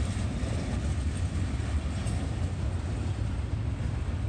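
Freight train cars rolling past, a steady low rumble of wheels on rail.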